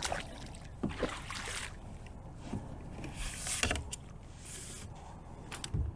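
Hooked northern pike thrashing and splashing at the surface beside a kayak, in several short bursts, with a few dull knocks, the last one near the end.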